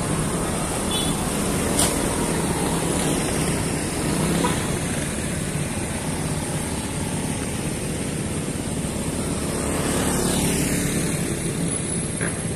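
Engines of vehicles passing close by, a small pickup truck and motor scooters, as a steady hum of road traffic; another vehicle goes past about ten seconds in, the sound swelling and dropping in pitch.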